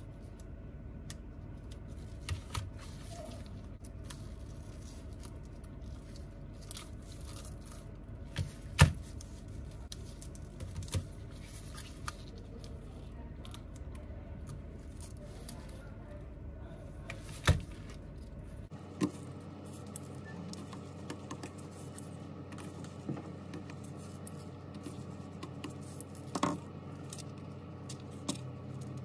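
Small hand tools clicking and scraping against an iPhone 8 Plus during repair work: scattered sharp clicks, the loudest about nine seconds in, over a steady low hum. The background hum changes abruptly about two-thirds of the way through.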